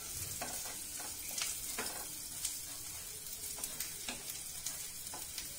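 Onion, garlic and dried red chilli sizzling in hot oil in a kadhai while a wooden spatula stirs them: a steady hiss with scattered small crackles.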